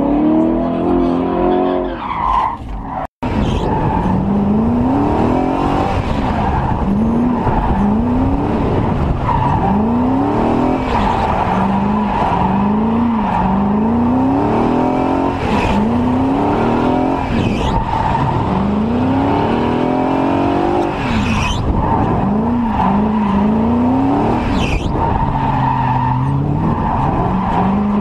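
BMW E30 drift car's engine revving hard, its pitch climbing and dropping again and again every second or two as the car is held in a slide, over a steady hiss of tyres skidding on concrete. The sound cuts out for an instant about three seconds in.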